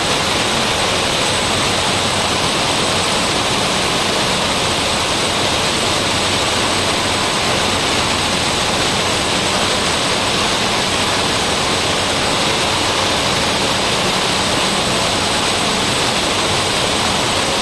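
Cessna 208B Grand Caravan's single turboprop engine and propeller heard from inside the cockpit on final approach: a loud, steady drone mixed with air rush, with a thin high whine over it.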